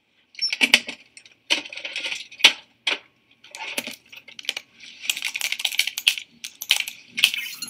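Typing on a laptop keyboard, with light clicks and rattles coming in irregular bursts.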